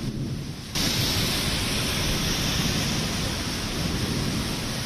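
Rain falling: a steady hiss that suddenly gets louder under a second in.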